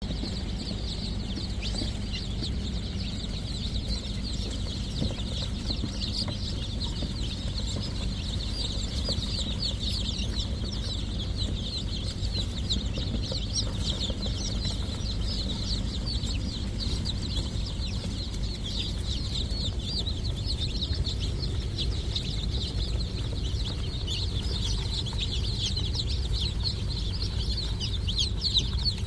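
A flock of chickens calling all at once: a dense, continuous chatter of short high peeps and clucks, over a steady low hum.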